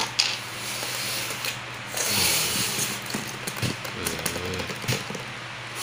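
Styrofoam packaging being handled: the foam lid is pulled off the tray, scraping and squeaking foam against foam, over a steady low hum.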